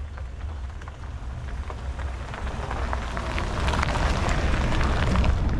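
Pickup truck driving slowly past on a dirt-and-gravel track: a low engine rumble under the crackle of tyres crunching over gravel, which builds and is loudest as the truck passes close, about four to five seconds in.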